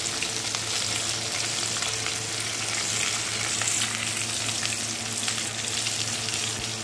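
Parshe (mullet) fish pieces frying in hot oil in an aluminium kadai: a steady sizzle dotted with small crackles and spits, over a steady low hum.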